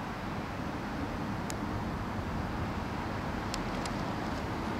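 Steady low outdoor rumble of ambient noise, with a few faint, short high ticks.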